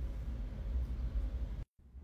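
Steady low rumbling background noise with some hiss, broken about three-quarters of the way through by a brief moment of dead silence where the clip cuts.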